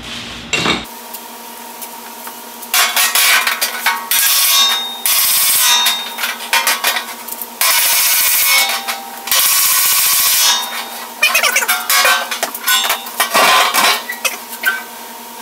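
Fast runs of hammer blows on the stainless-steel sheet-metal edge of a grill hood, starting about three seconds in and coming in bursts of one to three seconds with short pauses between. The edge is being hammered down to form a lip and shrink the metal.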